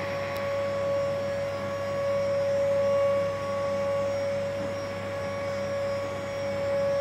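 Steady electric whine with a low hum underneath from the mast drive of a Jungheinrich EKS 312 order picker as its raised operator platform is lowered.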